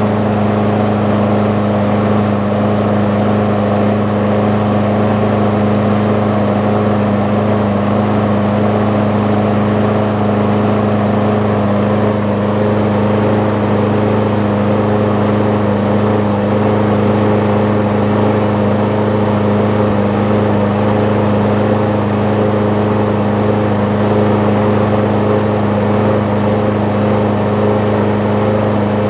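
Briggs & Stratton Quantum single-cylinder four-stroke mower engine running steadily at a fixed throttle after a carburetor clean, an even unchanging engine note.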